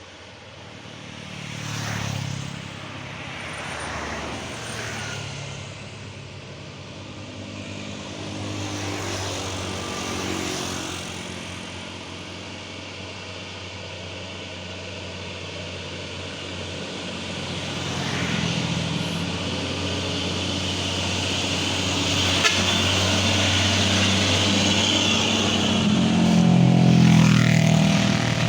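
Road traffic passing one vehicle after another, engines swelling and fading as each goes by. A heavy vehicle grows louder over the last ten seconds and passes closest near the end.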